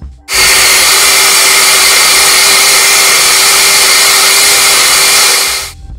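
Oster countertop blender running at a steady speed, puréeing rehydrated guajillo chiles in water. It switches on about a quarter second in and cuts off just before the end.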